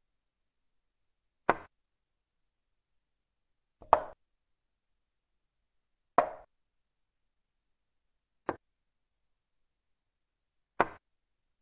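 Chess software's move sound, a click like a wooden piece set down on a board, heard five times about every two and a third seconds, once for each move replayed. The fourth click is quieter.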